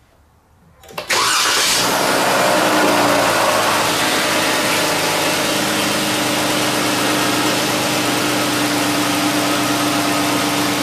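Jeep Grand Cherokee's 3.6-litre V6 engine starting about a second in, then idling steadily. This is the first start after an oil change, run to pressurize the oil system and fill the oil filter housing.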